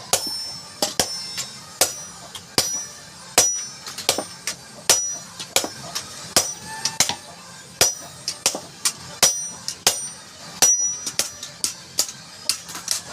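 Hand hammer striking a steel machete blade, an irregular run of sharp blows at roughly two a second, each with a short high metallic ring, as the blade's tip is shaped.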